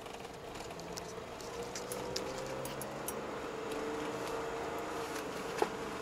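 Car engine and road noise heard from inside the cabin while driving, a steady drone whose pitch climbs a little in the first few seconds and then holds, with a short click near the end.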